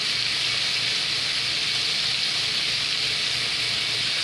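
Flour-coated chicken strips frying in hot oil in a skillet: a steady, even sizzle.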